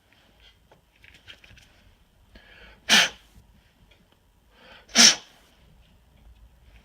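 Two sharp puffs of breath blown by mouth through a small port of a snowmobile carburetor, about two seconds apart, each led by a short intake of breath. The blowing checks that the cleaned passage is open. Faint clicks of the carburetor being handled come before them.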